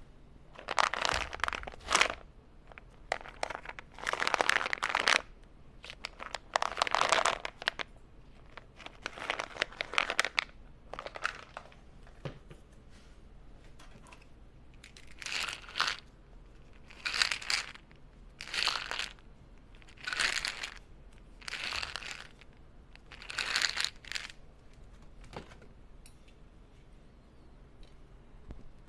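Tums antacid tablets handled right against a tiny clip-on microphone: about a dozen short sounds, each under a second, with pauses between.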